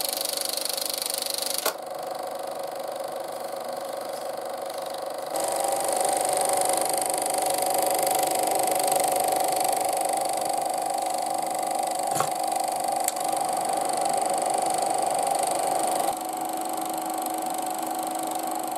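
Elmo Super 8 film projector running: a steady mechanical whir of the motor, fan and film transport. It steps up in level about five seconds in and eases off a little near the end. A few sharp control clicks come through, one just under two seconds in and a couple around twelve to thirteen seconds.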